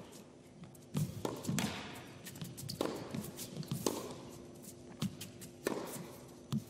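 Tennis rally on an indoor hard court: sharp pops of racket strikes and ball bounces, about one a second.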